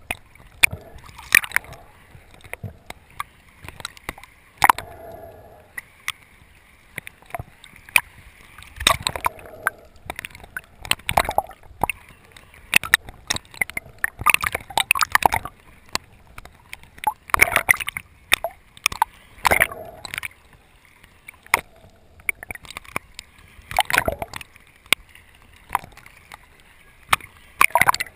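Muffled water sloshing and gurgling around a GoPro camera held just under the surface, with irregular splashes and sharp clicks coming every second or two.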